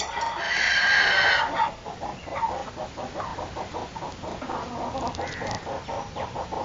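Chickens calling: one drawn-out call lasting about a second near the start, then a long run of quick, short clucks.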